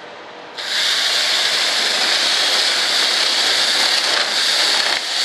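Cordless drill running steadily with a thin twist bit boring into a plywood ring, starting about half a second in as a high-pitched hiss, with a brief dip near the end.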